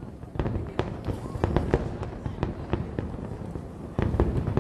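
Aerial fireworks shells bursting in a rapid series of sharp bangs over a steady low rumble, getting louder about four seconds in.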